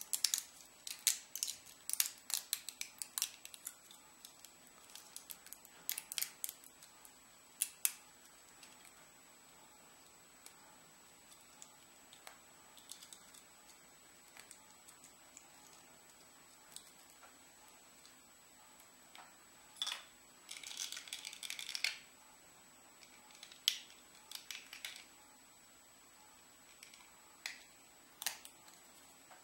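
Small 3D-printed PLA plastic parts clicking and snapping as they are handled and worked by hand: a quick run of sharp clicks at first, then scattered clicks, with a denser scratchy scraping stretch about two-thirds of the way through.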